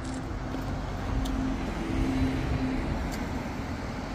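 Cars driving past on a town street: steady engine hum over road noise.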